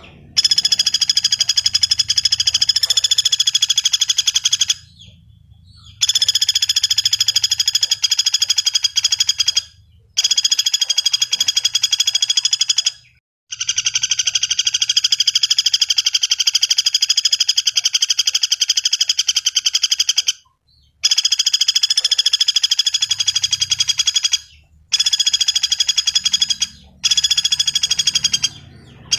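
Common flameback woodpecker (pelatuk bawang) giving long, rapid rattling trills, one after another, about seven in a row with short pauses between them.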